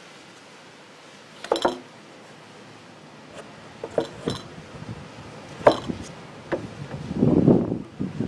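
Clinks and knocks of a glass bottle being set into a wooden screen-printing jig and the screen frame being lowered onto it, then a longer scrape about seven seconds in as the squeegee is pulled across the inked silkscreen.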